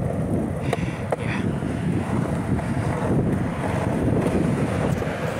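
Wind buffeting the microphone, a steady, uneven low rumble.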